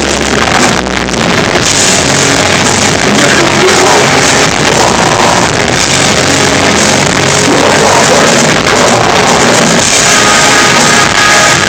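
Live melodic hardcore band playing at full volume: distorted guitars and drums in one loud, dense wash, heard through a poor, overloaded recording.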